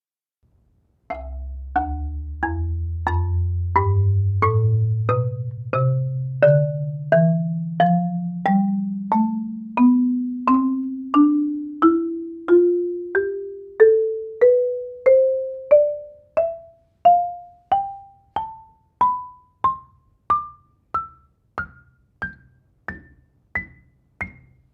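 Marimba played one note at a time in a slow, even ascending scale, from its deep bass bars up to its highest bars, about 33 mallet strokes in all. The low notes ring on and overlap, while the high notes are short and dry.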